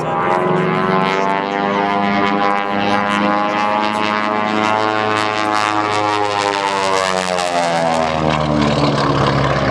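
Twin radial engines and propellers of a Beech 18 running at high power through an aerobatic manoeuvre, the engine pitch climbing and then sinking again. Near the end the sound turns lower and rougher as the plane passes low and close.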